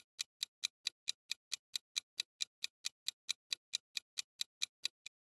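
Clock-like ticking sound effect of a quiz countdown timer: sharp, even ticks about four and a half times a second, cutting off about five seconds in.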